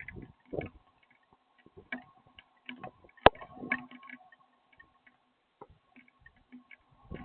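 Irregular faint ticks and taps, with one sharp click about three seconds in, over a faint steady high hum.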